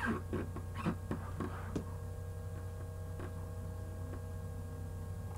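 Steady low electrical hum with a few faint steady tones above it, the background of a desktop microphone recording. A short, irregular run of soft clicks or knocks in the first two seconds.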